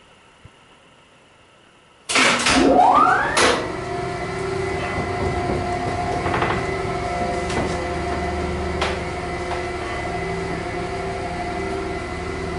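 Old geared-traction freight elevator setting off downward: after about two seconds of quiet the hoist motor cuts in abruptly with a whine rising in pitch as it comes up to speed, then the machine runs steadily with a gear whine and hum, with a few clicks as the car travels down the hoistway.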